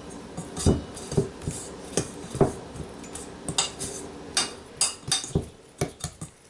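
Irregular knocks and clatter of a mixing bowl and kitchen utensils as the kneaded bhature dough is oiled and handled, with a few heavier thumps among lighter clinks.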